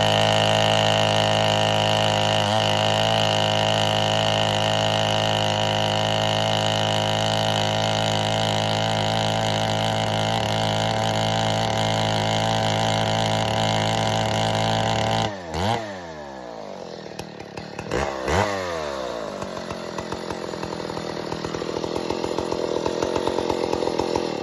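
Stihl 090 two-stroke chainsaw running flat out at a steady pitch while cutting into wood. About fifteen seconds in, the engine note drops sharply and falls away, then it gets one quick blip of the throttle and runs on at lower speed, building again near the end.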